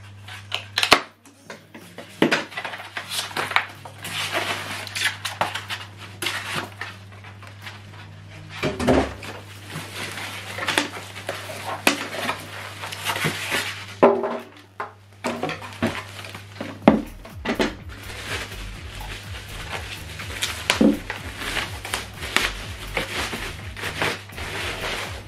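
Packaging being handled as a subwoofer is unpacked: polystyrene foam end caps rubbing and knocking, and a plastic bag crinkling, in irregular rustles and sharp clicks throughout.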